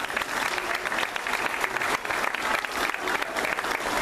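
Large audience of schoolchildren and adults applauding: a steady, dense patter of many hands clapping.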